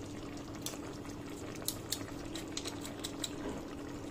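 Cornflour-thickened sauce with vegetables simmering in a wok, bubbles popping in irregular short clicks over a steady low hum.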